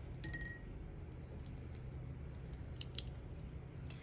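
A few small clicks and a short ringing clink from painting tools handled on the tabletop: one clink near the start, then two sharp clicks close together about three seconds in, over a faint steady low hum.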